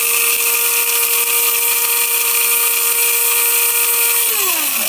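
Small electric coffee and spice grinder with a 130-watt motor running while grinding sunflower kernels: a loud, steady high whine that winds down with a falling pitch near the end as the motor stops.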